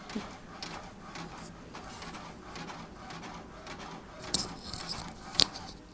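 Inkjet printer printing a page: the print carriage shuttles back and forth in a steady repeating pattern, with two sharper clacks about four and five seconds in as the paper is advanced and pushed out.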